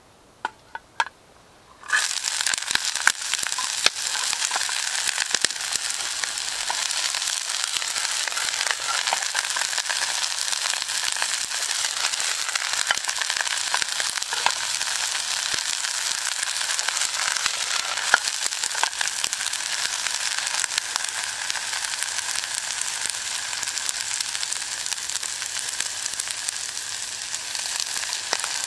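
A few light clicks, then about two seconds in vegetables hit a hot pan and start sizzling loudly: a steady stir-fry sizzle with crackling.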